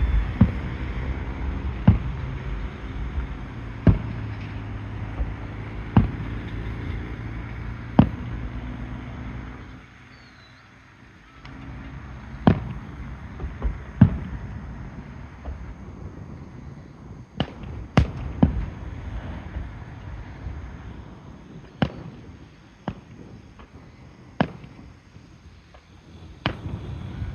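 Aerial fireworks shells bursting in sharp bangs, about one every two seconds at first, then more irregularly with some close pairs. A low steady engine drone runs under the first ten seconds, then drops away.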